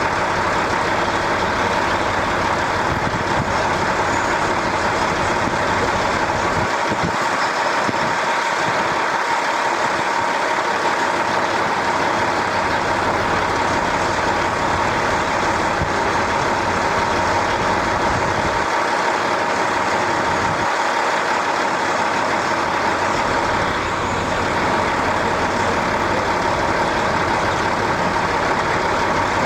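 Steady engine drone with a constant hum. Its low rumble drops away twice for a few seconds.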